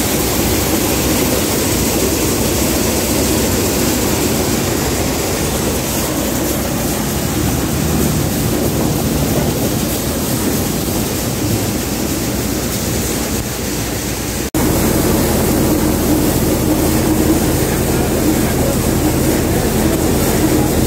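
Multicrop thresher running steadily under load while threshing mung beans, a loud continuous mechanical drone. The sound cuts out for an instant about two-thirds of the way through, then goes on as a steadier low hum.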